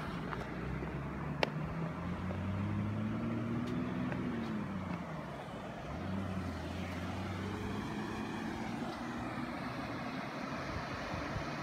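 A road vehicle driving past, its low engine hum rising in pitch and then falling about four seconds in, over a steady rushing background. A single sharp click sounds about a second and a half in.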